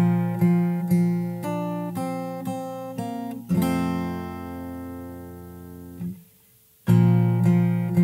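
Acoustic guitar with a capo played fingerstyle: a run of plucked bass and treble notes, then an E-shape chord struck about three and a half seconds in that rings for about two and a half seconds and is muted. After a short silence the plucked pattern starts again.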